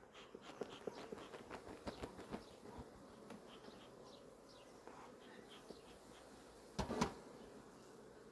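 Honeybees buzzing faintly over an opened hive, with small clicks and rustles of the hive being handled. A louder double knock comes about seven seconds in.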